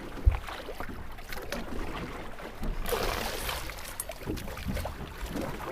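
Small boat on the sea: water sloshing against the hull with wind on the microphone, a sharp thump about a third of a second in, and a brief rush of noise about three seconds in.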